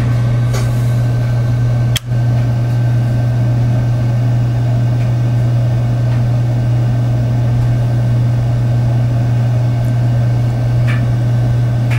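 Steady, loud, low electrical hum of running equipment, with one sharp click and a momentary drop in sound about two seconds in.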